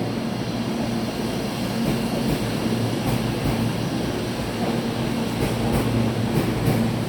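Tobu 80000 series electric train running out of the station, with a steady low motor hum and a few wheel clicks over rail joints in the second half.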